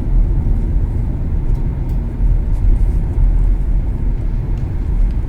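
Steady low rumble of tyres and road, heard from inside the cabin of a moving 2016 Nissan Leaf electric car.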